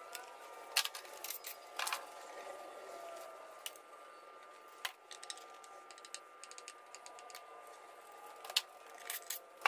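Irregular clicks and clacks of hand work in a truck's engine bay: plastic connectors and small metal parts being fitted around the ignition coil packs and their brackets on the valve cover, with a louder knock now and then and a quick run of small clicks about halfway through.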